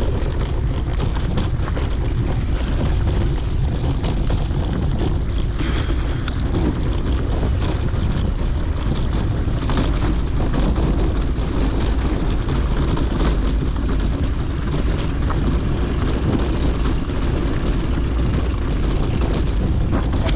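Steady rushing wind on the camera microphone, mixed with the rumble of mountain bike tyres rolling over a dirt track, with scattered small rattles and knocks from the bumps.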